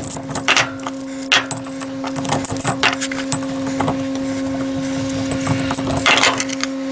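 Irregular metallic clicks and knocks of a ratchet and stud extractor working the exhaust manifold studs out of an Austin A-Series cylinder head, over a steady hum.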